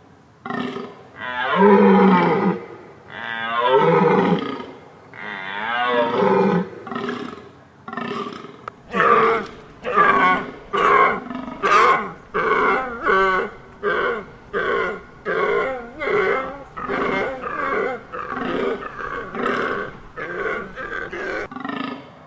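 Deer calling: three long calls of about two seconds each, then from about nine seconds in a rapid series of short calls, one or two a second.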